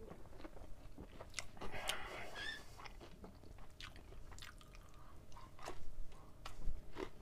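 Close-up mouth sounds of a person biting and chewing a slice of thin-crust pizza, with scattered crisp clicks and crunches.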